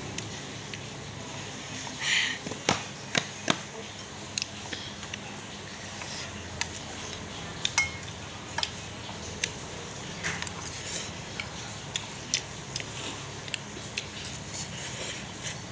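Cutlery clinking against a bowl now and then while eating noodles: scattered short sharp clicks over a steady low background, with a brief noisier sound about two seconds in.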